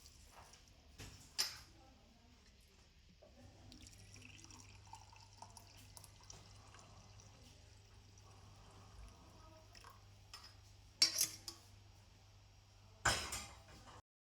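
Quiet room with a faint steady low hum and a few short, sharp knocks, the loudest about 11 and 13 seconds in.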